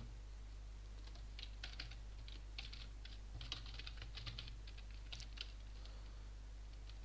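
Typing on a computer keyboard: a quick, irregular run of key clicks starting about a second in and stopping after about five seconds, over a steady low hum.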